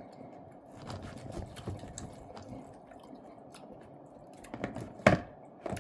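A person chewing a bite of steak close to the microphone, with a sharp click about five seconds in.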